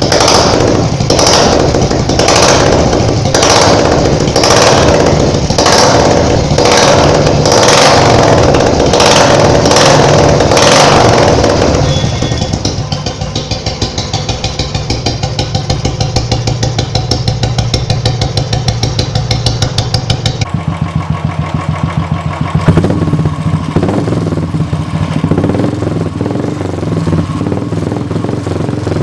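Royal Enfield single-cylinder engine running through an aftermarket silencer. It is revved in repeated throttle blips, about one a second, for the first twelve seconds or so, then drops to a steady, even idle thump.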